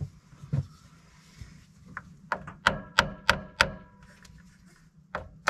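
Ball-peen hammer tapping on the fuel injection pump of a 7.3 IDI diesel engine: five quick light strikes about halfway through, each with a short metallic ring, after a duller knock near the start.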